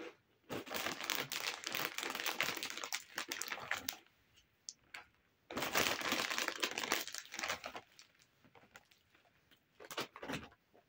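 A Doritos chip bag crinkling as it is handled and tipped up to pour out the last chips, in two spells of a few seconds each with scattered crackles.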